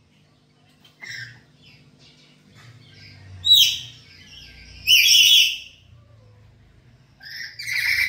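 Black-capped lories calling: a short call about a second in, two loud squawking calls in the middle, the second lasting nearly a second, and another call near the end.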